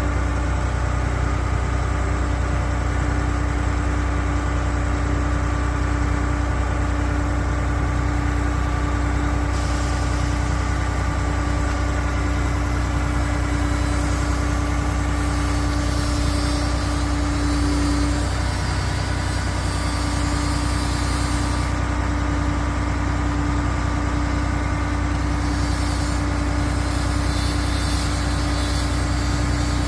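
Diesel engine of a Junjin concrete pump truck running steadily with a deep, even hum. A high hiss comes in about a third of the way through, drops out about two-thirds in, and returns near the end.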